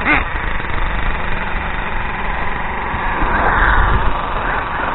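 Radio-controlled buggies running on a dirt track, their motors giving a steady mechanical drone that swells briefly a little past the middle as a car comes closer.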